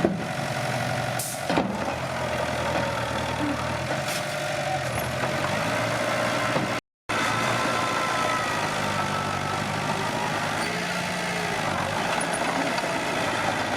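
Bulldozer's diesel engine running steadily, with a couple of sharp knocks in the first two seconds. The sound cuts out for a moment about seven seconds in, then the engine carries on.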